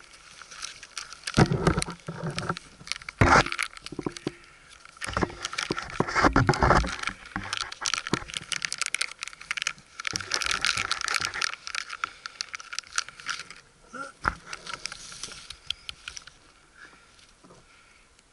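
Rustling, crinkling and clicking of a tree climber's gear bag and metal carabiners being rummaged through for kitty treats, with several louder knocks in the first seven seconds. The handling dies down near the end.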